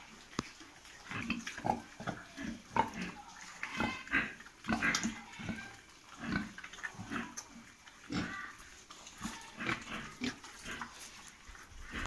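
A group of pigs grunting in short, irregular calls, with a few higher-pitched squeals around four to five seconds in.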